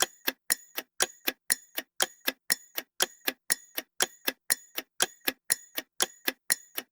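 Clock-ticking countdown sound effect: sharp, evenly spaced ticks at about four a second, timing the guess in a quiz.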